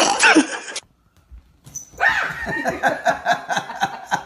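A cat yowls open-mouthed at another cat, and the sound cuts off abruptly under a second in. After about a second of silence, a small dog yips in a rapid run of short, high calls, about four or five a second.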